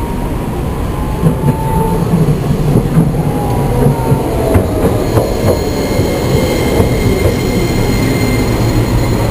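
Kagoshima City Tram 7000-series (U-Tram II) low-floor tram pulling into the stop and slowing. Its wheels rumble on the rails, with clicks over rail joints and a faint falling whine as it slows.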